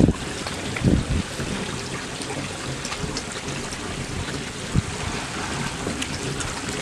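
Water running and trickling steadily into a circular fish hatching tank, with a few short low knocks near the start and one about five seconds in.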